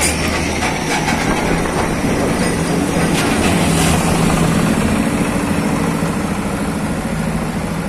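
A heavily loaded multi-axle trailer rolls slowly past on its many tyres, a dense steady rumble of road traffic, with a steady low diesel engine hum.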